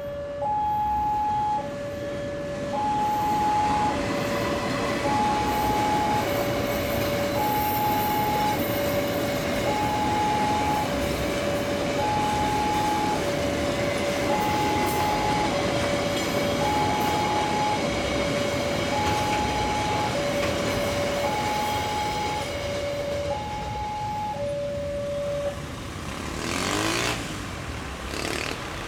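Railway level-crossing warning alarm sounding a two-tone high-low chime, the tones alternating about once a second, over the noise of a freight train of fuel tank wagons rolling past. The alarm stops a few seconds before the end, and a road vehicle passes close by with a rising engine note.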